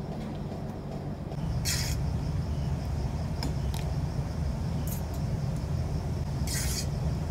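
Pot of water on the stove with a steady low rumble, louder from about a second in, as fettuccine is lifted out with a wire spider strainer. Two short hisses of water splashing, about two seconds in and near the end.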